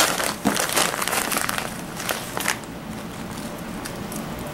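Plastic bag of brown sugar crinkling as it is handled and opened, in irregular bursts over the first couple of seconds, then quieter.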